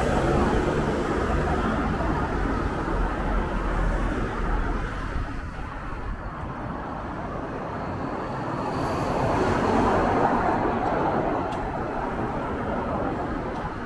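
Toden Arakawa Line streetcar running in toward the platform, its running noise mixed with road traffic. The noise swells again about nine seconds in, with a faint high whine.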